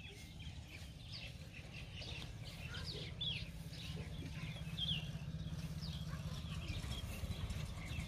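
Birds chirping: many short calls, most of them falling quickly in pitch, overlapping one another, over a steady low rumble.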